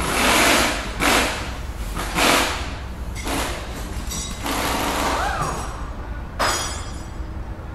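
A series of about six whoosh sound effects, each a short rush of noise that swells and fades, over a steady low hum.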